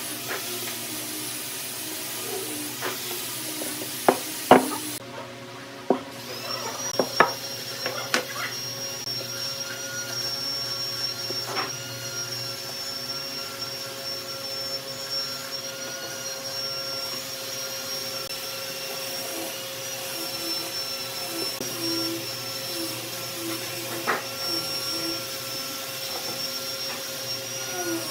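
A motor-driven machine running steadily with a high whine and a lower hum, starting about six seconds in. Over it come a few sharp taps early on, then the soft scrape of a wooden stick spreading paste over a wood block.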